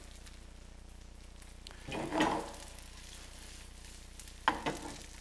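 Butter sizzling gently in a frying pan around a sea bass fillet, the burner just switched off so the fish slow-cooks in the browned butter. Utensil noises on top: a short scrape about two seconds in and a few sharp clicks a little before the end.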